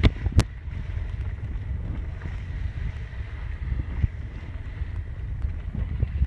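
Wind buffeting the microphone over water rushing along a moving sailboat's hull, a steady low rumble, with one sharp knock about half a second in.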